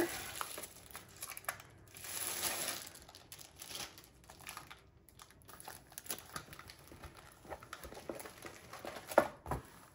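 Crinkling and rustling of plastic packaging and a rolled diamond-painting canvas with its plastic cover sheet as it is pulled out and unrolled, in scattered bursts loudest about two seconds in. A sharp tap near the end.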